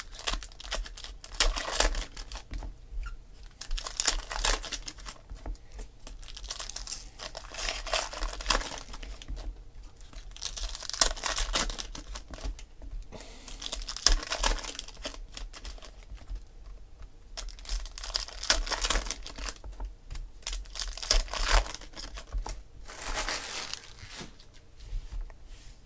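Foil baseball card packs being torn open and crinkled by hand, in repeated bursts of crinkling every couple of seconds.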